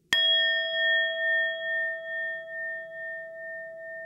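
A single struck metallic chime, like a bell or singing bowl, hit once right at the start and ringing on with a wavering tone that slowly fades.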